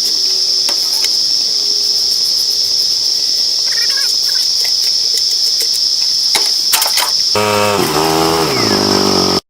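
Loud, steady chorus of 17-year periodical cicadas, with scattered clicks over it. Near the end a lower pitched sound with a falling pitch joins, then everything cuts off abruptly.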